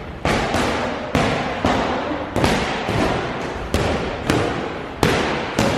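Punches landing on kickboxing pads or a bag: a string of sharp thuds at an uneven pace of about two a second, each ringing on in a reverberant hall.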